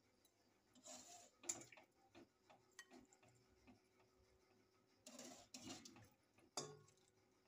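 Faint clinks and knocks of a ladle against an aluminium cooking pot as the soup is served, a handful of scattered strikes with brief rustling between them. The strongest knocks come about a second and a half in and near the end.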